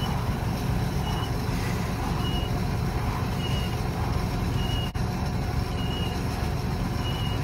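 Steady running of a tractor engine with the PTO engaged, driving the seeder's electric power generation during a stationary seed-meter calibration. A short high beep repeats about once every 1.2 seconds.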